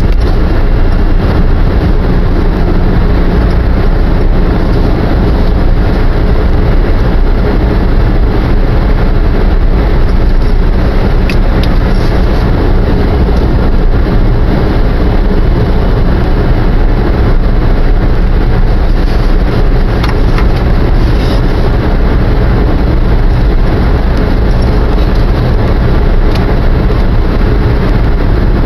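Steady, loud road noise inside a car cruising at expressway speed: low tyre rumble and engine drone with no changes.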